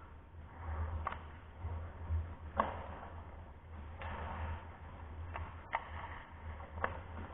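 Ice hockey play: about five sharp clacks of sticks and puck, the loudest a little over two seconds in, between stretches of scraping hiss, over a steady low hum.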